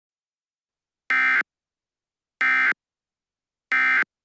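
Emergency Alert System end-of-message signal: three short, identical digital data bursts (the SAME "NNNN" tones), about 1.3 seconds apart. They mark the end of the alert message.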